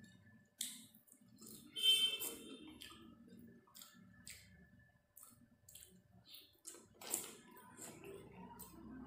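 Close-miked eating of rice and chicken curry by hand: wet chewing with sharp lip smacks and clicks, the loudest about two seconds in and again about seven seconds in.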